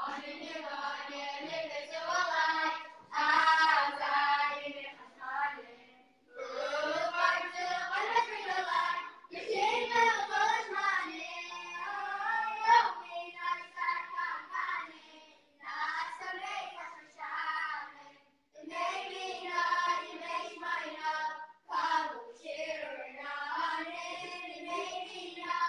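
A boys' choir singing unaccompanied, in long phrases with short breaks between them.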